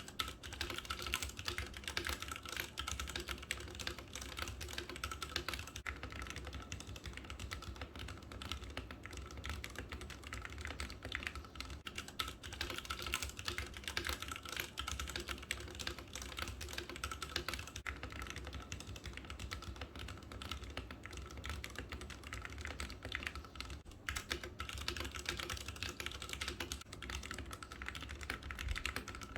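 Typing on a Ducky One 2 SF mechanical keyboard with Cherry MX Red linear switches: a fast, continuous stream of key clacks. The switches are heard both stock and lubed.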